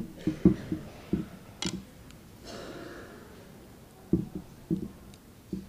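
Irregular dull thumps and knocks, several in the first second and a few more near the end, with a short rustling noise around the middle.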